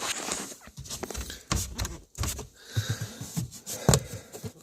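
Irregular clicks, knocks and light rattling of plastic dashboard trim being handled during disassembly, the loudest knock about four seconds in.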